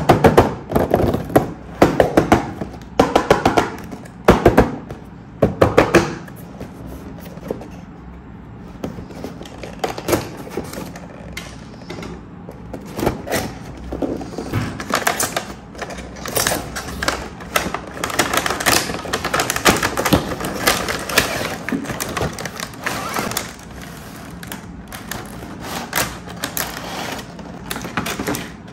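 Clicks and knocks of plastic toy track pieces and packaging being handled. The loudest are a run of sharp knocks in the first six seconds, followed by steadier, quieter clicking.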